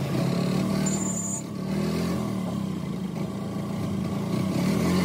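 Auto-rickshaw's small engine running as it rides through traffic, heard from inside the open cabin, its pitch rising and falling a little with the throttle. A brief high-pitched tone sounds about a second in.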